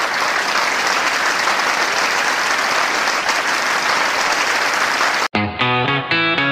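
Crowd applause, a steady dense clapping that cuts off abruptly about five seconds in. Music with plucked-guitar notes starts right after.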